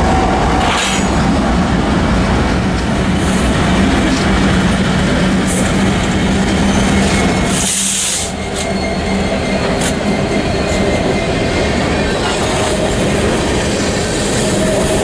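BNSF EMD SD70ACe diesel locomotives rumble past close by with a steady engine drone. A brief high hiss comes about eight seconds in, and near the end the wheels of empty coal cars roll past clacking on the rails.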